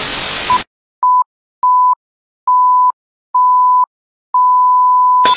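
Electronic outro sound effect: loud hissing static that cuts off less than a second in, then a series of beeps at one pitch, each longer than the one before, ending in a long held tone that breaks off into a sudden crash at the very end.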